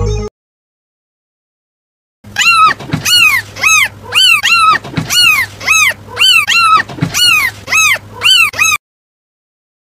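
A rapid run of short, high-pitched animal cries, each rising then falling in pitch, about two or three a second for some six seconds, starting about two seconds in.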